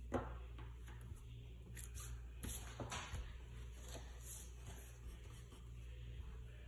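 Pencil drawing on paper: faint scratching strokes and light taps, with one sharp click just after the start.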